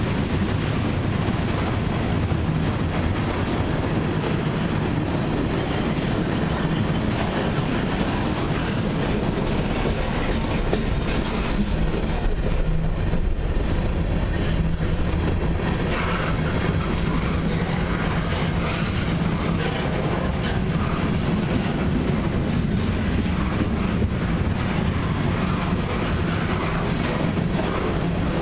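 Cars of a long mixed freight train, autoracks among them, rolling past: a steady rumble of steel wheels on rail with a clatter over the rail joints.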